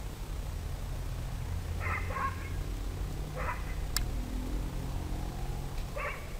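A dog barking three times, short barks a second or more apart, over a steady low rumble, with one sharp click about four seconds in.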